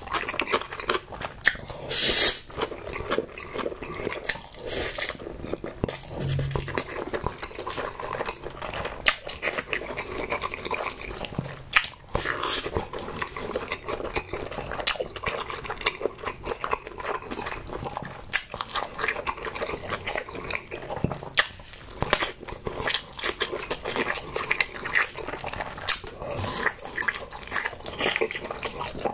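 Close-miked eating sounds: wet chewing and lip smacking of saucy Buldak carbonara instant noodles and a chunk of Spam, with one loud noodle slurp about two seconds in.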